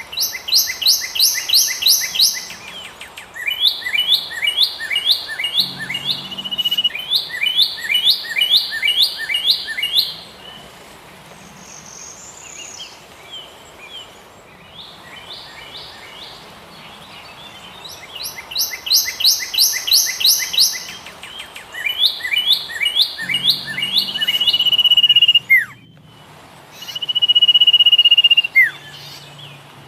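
Songbirds singing: several phrases of rapid repeated high chirps, a lull in the middle, then more phrases. Near the end a steady high-pitched trill is held for a couple of seconds at a time.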